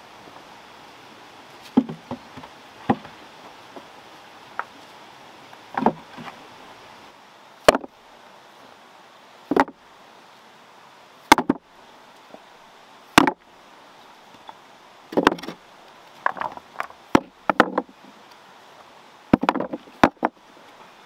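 Rounded stones dropped one at a time into a wooden wheelbarrow, each landing with a sharp knock of stone on wood and on other stones, about every two seconds and coming faster near the end, over a steady background hiss.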